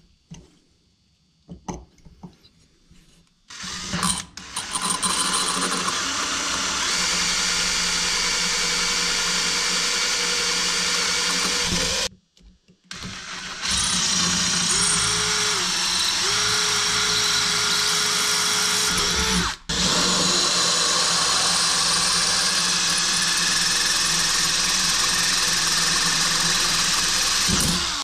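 Electric drill boring into a broken stainless-steel exhaust stud in an aluminium cylinder head, starting after a few seconds of small handling clicks and running steadily, with a short stop about twelve seconds in and a brief pause near twenty seconds.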